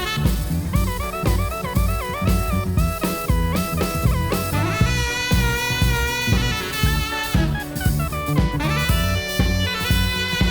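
Background music: an instrumental jazz tune with a saxophone playing a stepping melody over a drum kit beat.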